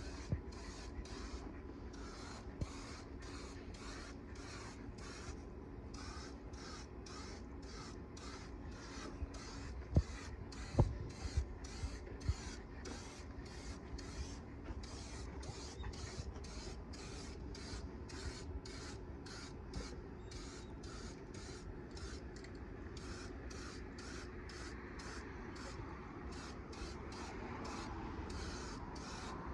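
Aerosol spray-paint cans hissing in short pulses, about two a second, as paint goes onto a truck's body. A few sharp knocks come through about ten to twelve seconds in.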